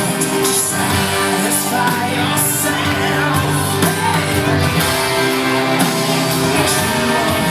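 Music with singing, with cymbal-like crashes at fairly regular intervals.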